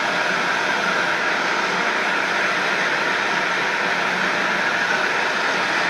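Handheld gas torch burning with a steady hiss as its blue flame heats a turbine blade red-hot.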